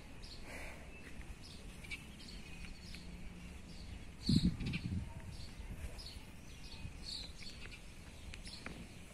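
Small birds chirping, short high calls repeating every second or so over faint outdoor background noise, with one brief low thump about four and a half seconds in.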